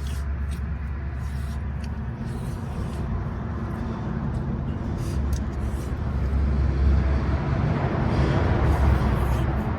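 Road traffic on the highway bridge overhead: a steady low rumble that swells louder about six seconds in as a vehicle passes, then eases near the end, with a few light clicks.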